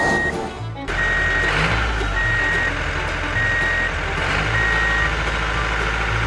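Vehicle reversing alarm giving steady, even beeps about every 1.2 seconds over a low engine rumble, with a short drop-out in the first second.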